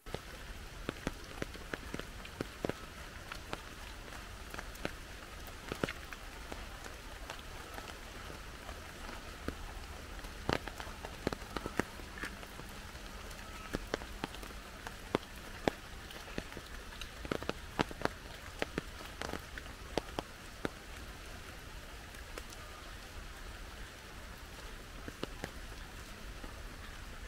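Rain falling steadily, a continuous hiss with many sharp, irregular drops striking a surface close by.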